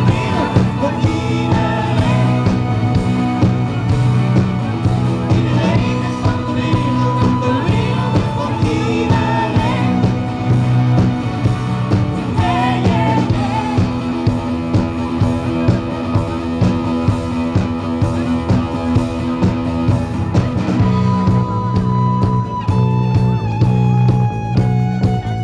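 Live rock band playing: electric bass, drums and guitars with male and female vocals over a steady beat.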